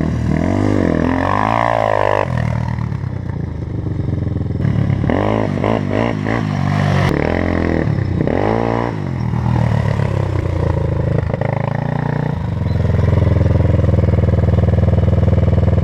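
Sport quad ATV engine revving up and down several times as it is ridden along a dirt trail, then running at a steady idle close by for the last few seconds.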